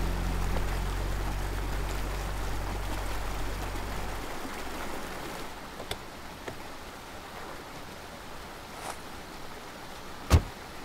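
Steady rush of a shallow stream running over rocks, under a low hum that cuts off about four seconds in. A few light clicks follow, then near the end a car door is pushed open with one loud clunk.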